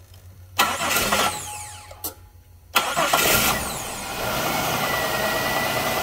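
Chevrolet 3800 Series II V6 being started on a freshly installed starter, cranking quickly and catching twice. The first start, about half a second in, runs briefly and dies away. The second, near the three-second mark, settles into a steady idle.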